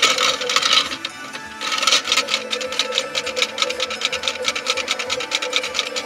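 Toy Bosch washing machine running, its small electric motor turning the drum with a steady whine and a fast, even clatter. The sound drops off about a second in and starts up again soon after.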